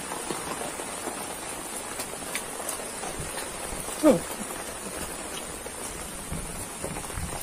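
Heavy rain pouring down in a steady hiss. A short sound falling in pitch cuts in about four seconds in.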